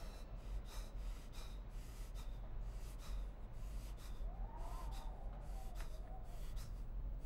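An injured man breathing hard in short, ragged gasps, with a few wavering whimpers from about four seconds in, over a steady low hum.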